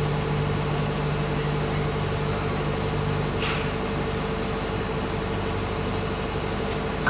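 A Ceflar M1110 soundbar and subwoofer playing back a steady, low droning sound with held tones. One deep tone drops out a little past three seconds in, and there is a brief hiss soon after.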